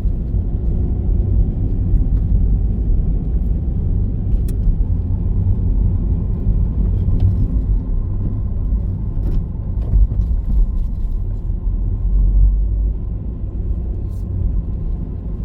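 Steady low rumble of travel noise while on the move, with a few faint clicks.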